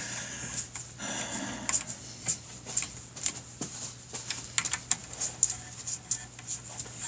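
Socket ratchet clicking in short, irregular runs as the clutch spring bolts of a Suzuki Hayabusa are turned down by hand.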